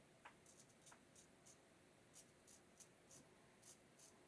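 A string of faint, short scratches at irregular spacing: a GEM Pushbutton single-edge safety razor cutting through lathered stubble, stroke after stroke.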